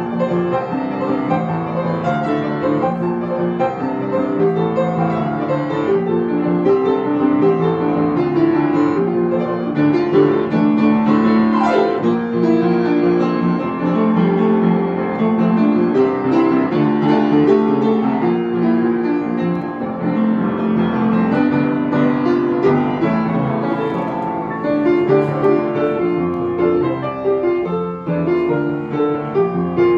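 Kawai upright piano played live, a continuous piece with both hands, melody over steady chords, with no pauses.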